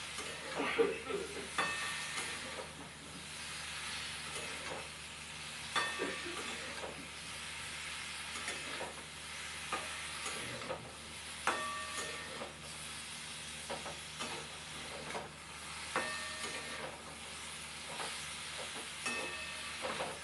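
Chalta (elephant apple) pieces sizzling steadily in oil in a metal wok while a metal spatula stirs and scrapes them. Every few seconds the spatula knocks the pan with a short ringing clink, about five times in all.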